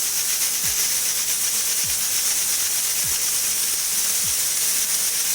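Pressure cooker whistle: a loud, steady hiss of steam escaping through the weight valve, a sign the cooker is at full pressure.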